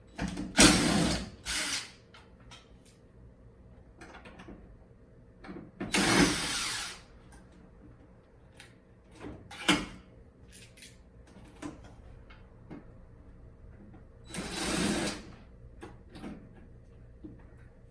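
A cordless power drill or driver runs in short bursts of about a second each, four or five times, with a sharp click and light ticks between the bursts. It is driving screws in or out of the panels of a ceiling cassette air conditioner as it is taken apart.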